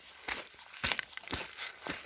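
Footsteps crunching through leaf litter on a forest floor, about two steps a second in an even walking rhythm.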